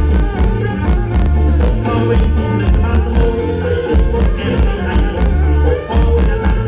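Live electric kantrum music played loud through a sound-truck system, with a heavy, pulsing bass beat under dense melody lines.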